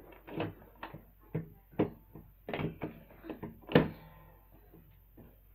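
Irregular knocks and clunks from the metal frame and ankle-lock bar of an inversion table being handled, the loudest one about four seconds in, then quieter.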